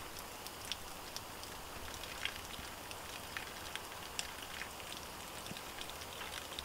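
Faint, steady patter of falling drops, scattered light ticks over a soft hiss.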